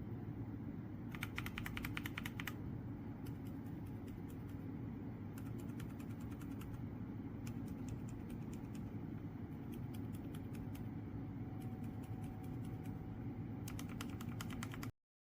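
Typing on a mechanical keyboard fitted with Outemu silent linear switches: scattered key clacks, with quick flurries of keystrokes about a second in and near the end, over a steady low hum.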